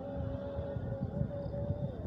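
Strong wind rumbling on the microphone. Over it, a distant voice over a mosque loudspeaker holds one long, wavering note of the call to prayer, which dips in pitch near the end.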